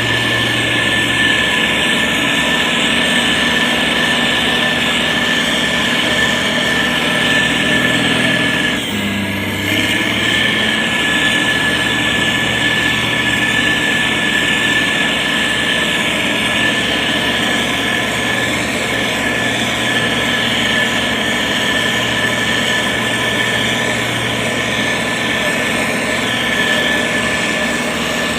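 Heavy construction machine's diesel engine running steadily, with a brief dip and change in its note about nine seconds in.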